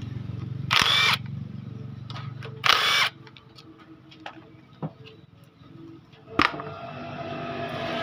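Cordless power driver spinning out the bolts of the cam sprocket cover on a motorcycle cylinder head: two short bursts a couple of seconds apart, followed by a few light metal clicks and one sharp click near the end as the cover comes off.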